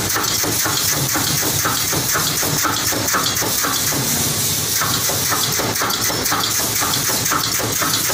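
Pneumatic wire-mesh welding machine running: a steady hiss of compressed air over a rapid, continuous clatter of clicks and knocks from its air cylinders and welding heads.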